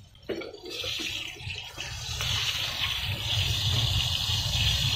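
Hot frying oil in a wok sizzling as fried tilapia is lifted out of it with metal tongs: a steady hiss that starts suddenly and grows louder about two seconds in, over a low rumble.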